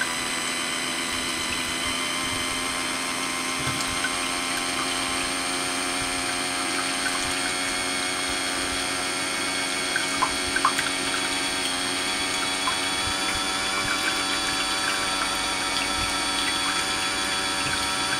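Electrolux Ultramix/Pro ESTM 6400 hand mixer running steadily, its twin wire whisks beating eggs and milk in a ceramic bowl: a constant motor whine, with a few light ticks around ten seconds in.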